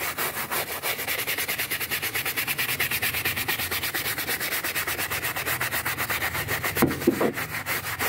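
Hand brush scrubbing a wet, textured plastic interior panel of a truck cab in rapid, even back-and-forth strokes, working in sprayed-on cleaner.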